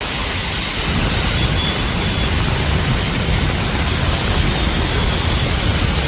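Heavy monsoon rain pouring down, a steady loud rush with a deep rumble underneath.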